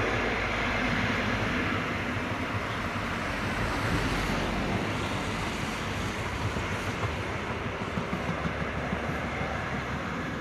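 High Speed Train (Class 43 power cars with Mk3 coaches) passing close by at speed: a steady rush of wheels on rail with rapid rhythmic thumping from the wheels as the coaches go by. The sound falls away right after the rear power car passes at the end.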